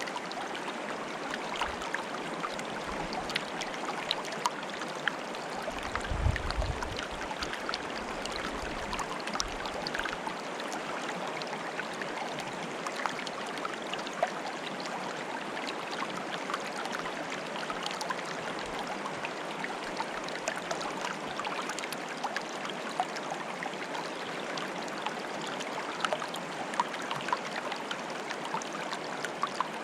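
Flowing water bubbling and trickling, a steady rush dotted with many small splashes and drips. A brief low rumble comes in about six seconds in.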